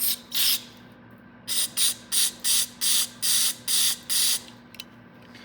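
Aerosol carburetor cleaner squirted through its straw into a small-engine carburetor's jets and passages to blast out deposits: two short squirts, then after a pause about eight quick squirts in a row.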